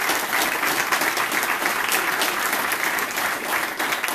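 A roomful of people clapping: dense, steady applause.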